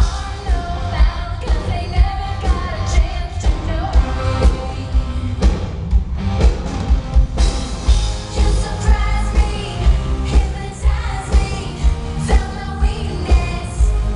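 A live pop-rock band playing with a steady beat of about two drum hits a second, and a woman singing lead over it. The sound is heavy in the bass.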